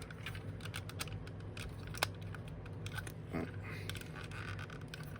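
Plastic parts of a Transformers action figure being worked by hand during transformation, giving scattered small clicks and ticks. There is one sharper click about two seconds in.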